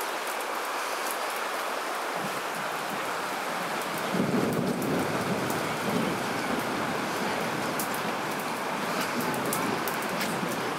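Rain after a thunderstorm: an even hiss of falling and dripping water with scattered small ticks of drops. About four seconds in, a low rumble joins and carries on under the hiss.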